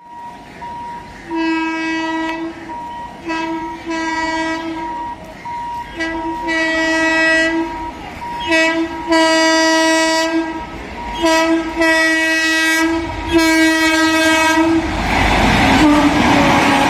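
WAP-7 electric locomotive horn sounding repeatedly in long blasts, about eight of them, a couple cut short at the start. Near the end the horn stops and the rumble and clatter of the train passing take over and grow louder.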